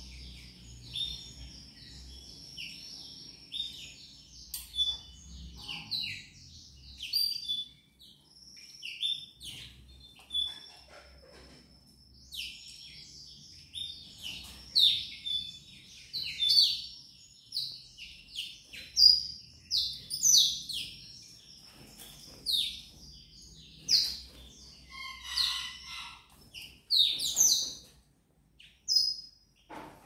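Blackthroats (yellow-rumped seedeaters) chirping and singing: quick high twittering notes and short trills, sparse at first, then denser and louder from about halfway through.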